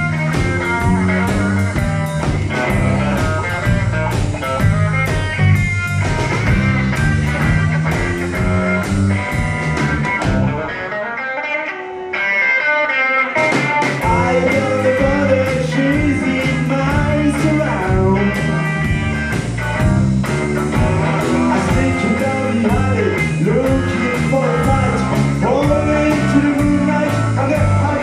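Rock trio playing an instrumental break: guitar lead over bass and drums. About eleven seconds in, the bass and drums drop out for a couple of seconds, leaving the guitar alone, then the full band comes back in.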